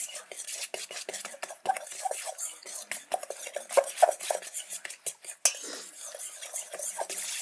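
A hand stirring a dry breading mix of flour and bread crumbs in a metal pot: a quick, irregular scratchy rustle of crumbs against the metal, with light clinks and knocks on the pot.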